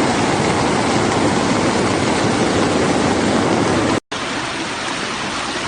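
Fast-flowing flash-flood water rushing steadily. It cuts out for an instant about four seconds in and comes back slightly quieter and thinner.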